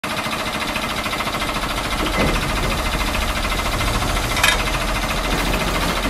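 A motorised construction machine running with a steady, rapid rattle. There is a knock about two seconds in and a sharper one about four and a half seconds in.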